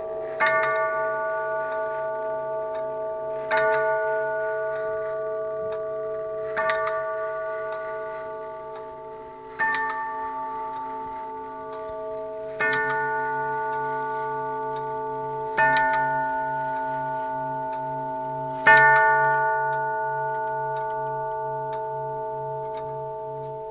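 Tubular bells of a JJ Elliott longcase clock striking the hour: seven evenly spaced strokes of the same note, about three seconds apart. Each stroke rings on long and overlaps the next.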